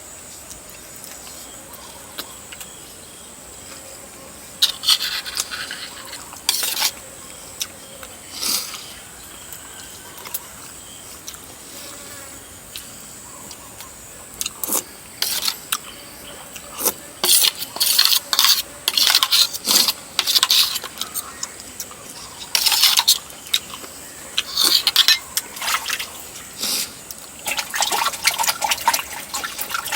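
Spoon or utensils clinking and scraping against a dish during eating, in scattered short clatters that come thick and fast in the second half.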